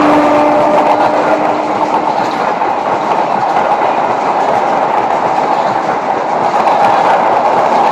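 A Renfe train passing close by: its horn's held note dips slightly in pitch and dies away about two seconds in, leaving the loud steady rumble and clickety-clack of the wheels on the rails.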